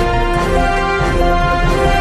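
Background theme music: held notes over a steady beat of about two a second.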